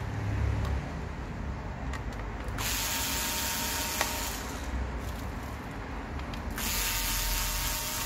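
Small cordless electric screwdriver running twice, each time for about a second and a half, with a steady motor whine, as it backs out the screws holding a laptop's motherboard.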